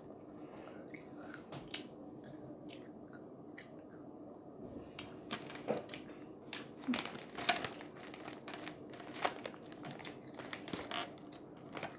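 A child chewing candy close to the microphone, with irregular crunching clicks and crinkling, sparse at first and busier in the second half.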